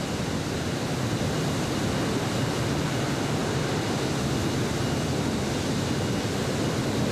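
Steady, even rushing noise of a steelworks casting floor around a ladle of molten steel and the continuous caster, with no distinct knocks or tones.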